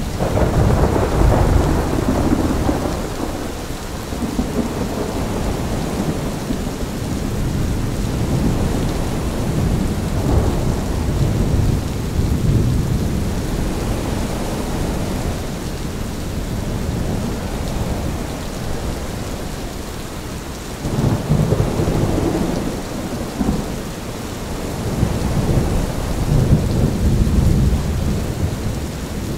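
Thunderstorm: steady rain with deep rolls of thunder that swell and fade about four times, among gusts of wind.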